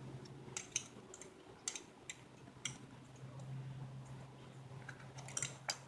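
Faint, scattered small clicks and ticks as the oil filler cap and dipstick are pushed in and threaded back into a Tao Tao TBR7's engine case by hand, over a low steady hum.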